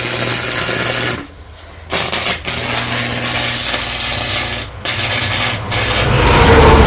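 Electric arc welder crackling and hissing as a bead is laid on thick steel gears. The arc stops for under a second about a second in, then runs on with a few brief breaks.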